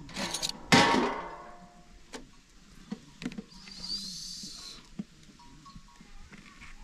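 A metal spoon clanking and scraping against a cooking pot and a large metal tray as soft cooked buttermilk curds are scooped out; one loud ringing clang about a second in, then a few light taps.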